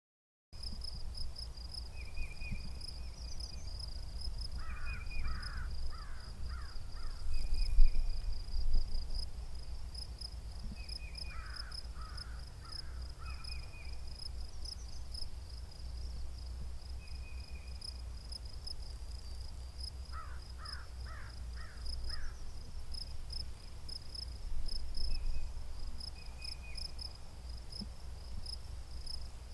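Three bouts of four or five harsh crow caws over a steady, pulsing chorus of insects in the woods. There is a low rumble, with a few thumps about eight seconds in.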